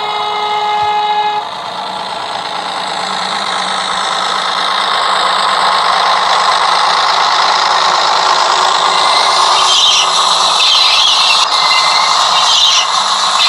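Digital sound decoder in a model Class 121 diesel railcar playing a short horn toot, then its diesel engine sound building steadily louder as the model gets under way. High squealing comes in near the end.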